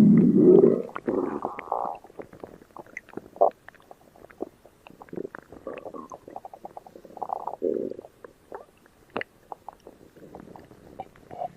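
Stomach growling and gurgling: a loud low growl for about the first second and a half, then a long run of small scattered gurgles, pops and squelches.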